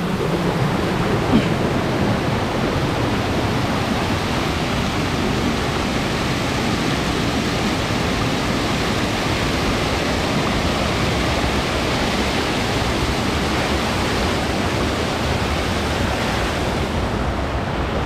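Water pouring over a low concrete-and-stone weir and churning in a stream pool: a steady, even rush of falling water.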